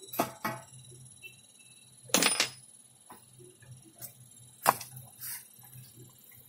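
Handling noises from a circuit board and its flat ribbon cables being lifted and set down on the metal back of an LCD panel: a few sharp clicks and knocks, the loudest a short clatter about two seconds in, over a steady low hum.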